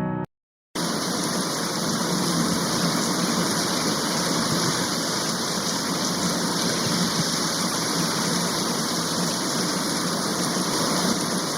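Steady rushing noise of heavy rain that cuts in suddenly after a brief silence under a second in, then runs on evenly.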